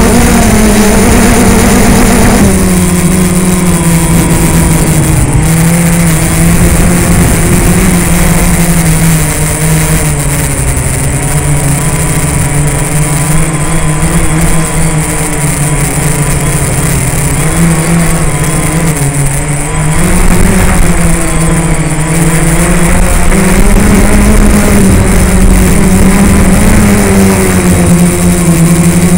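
Quadcopter's electric motors and propellers humming steadily, heard from on board. The pitch drops about two and a half seconds in and stays lower through the middle as the throttle eases for the descent, then rises again after about twenty seconds.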